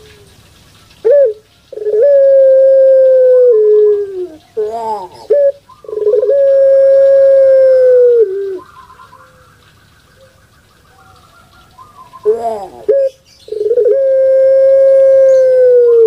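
Puter pelung (Barbary-type collared dove) cooing: three long, loud coos of about two seconds each, held on one pitch and dropping at the end, with short broken notes between them and a quiet spell of a few seconds after the second coo.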